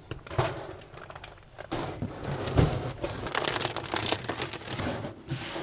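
Crinkling and scraping of a foam insulation sheet being handled and pressed into place inside a cabinet against the hull, in irregular bursts.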